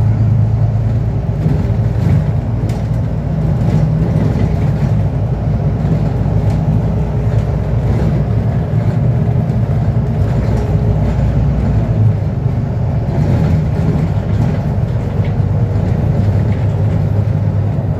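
Bus engine running, heard from inside the passenger cabin: a steady low drone with road noise over it.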